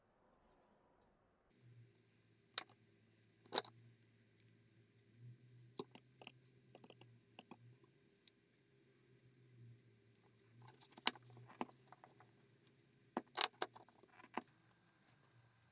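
Metal digital calipers being handled and closed against a wooden knife-handle block on a wooden workbench: scattered sharp metallic clicks and taps, a few of them louder, over a faint steady low hum.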